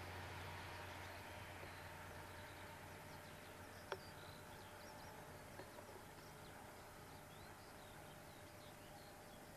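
Faint small birds chirping, with a distant engine noise dying away over the first second or two and a single sharp click about four seconds in.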